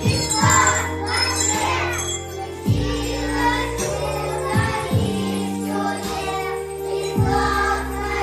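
Music: a song with singing and bells over held bass notes. The voices are plainest in the first two seconds.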